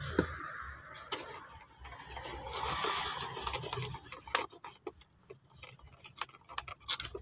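A cloth rubbing back and forth across a sketch pad's drawing surface, wiping off marker ink, loudest a third of the way in. A sharp click near the start and scattered light taps and clicks follow as the pad and markers are handled.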